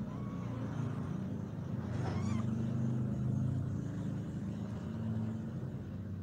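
Mother cat purring steadily while she nurses her kittens: a low, pulsing rumble that swells a little about two seconds in.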